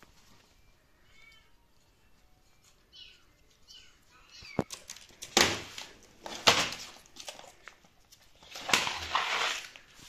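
Recorded kitten meows played through a laptop speaker: faint, high, wavering mews in the first few seconds. About halfway through, a sharp click is followed by several loud, noisy bursts.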